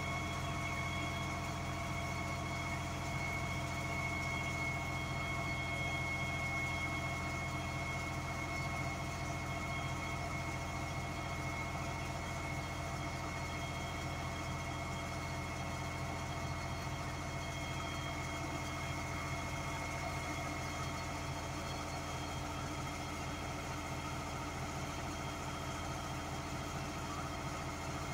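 US Jetting 4018 sewer jetting unit running steadily at a constant engine speed.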